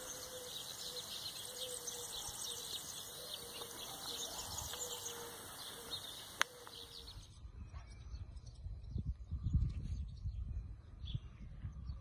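Many small birds chirping and twittering in a dense, quick chatter. About seven seconds in this stops at a cut, and wind buffets the microphone in low gusts, with a few scattered bird calls over it.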